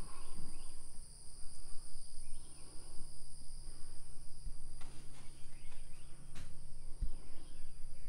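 Steady high-pitched drone of insects, with a low steady hum underneath and a few soft knocks in the second half.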